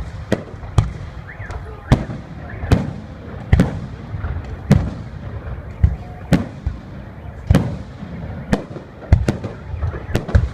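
Fireworks display: a steady series of sharp shell bursts, roughly one a second, each with a short echoing tail, over a continuous low rumble.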